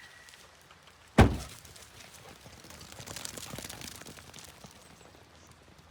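A single sharp thunk about a second in, followed by faint scratching and rustling.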